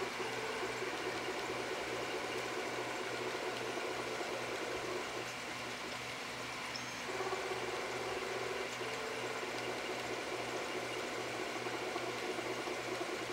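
Stepper motors of a miniature half-scale Printrbot Simple 3D printer whirring as the print head moves, printing a gear. A steady whine drops away about five seconds in and returns about two seconds later, over a constant low hum.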